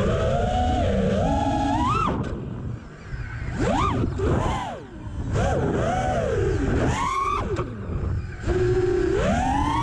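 Diatone GT R548 FPV racing quadcopter's brushless motors and props whining in flight. The pitch rises and falls sharply with the throttle, and the level drops briefly twice where the throttle is cut.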